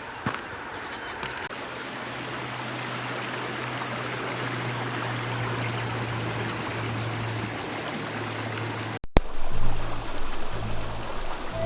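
River water rushing steadily over a rocky bed, growing slowly louder. About nine seconds in it cuts out for a moment and comes back louder.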